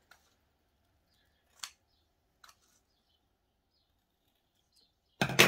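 Paper scissors cutting thin silver ribbon: two faint snips, then one loud sharp clack near the end.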